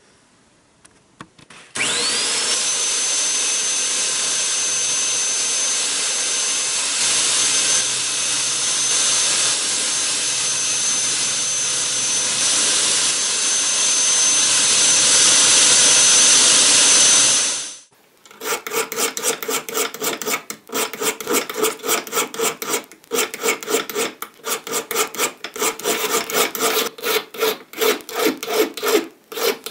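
A powered wire wheel spins up with a quick rising whine and runs steadily, brushing rust off an old hand plane's bolts, then stops suddenly. It is followed by a hand file rasping on a bolt held in a metal vise, at about two strokes a second.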